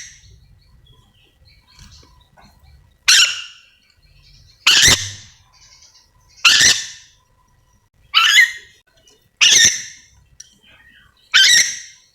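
Ornate lorikeet (nuri dora) giving loud, harsh screeching calls, six in a row about every one and a half to two seconds, each lasting about half a second and dying away quickly.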